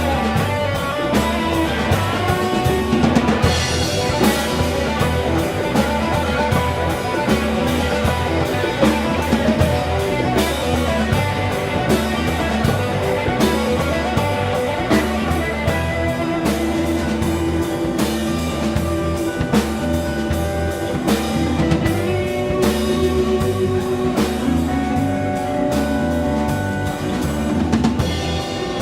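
Live blues band playing: guitar over a steady drum-kit beat with a pulsing low end.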